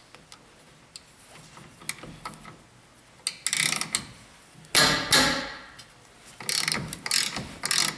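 Ratchet wrench clicking in three short bursts, turning the 3/8 hex caliper pin bolts on a brake caliper. The bursts come in the second half, after a few quiet seconds of small ticks.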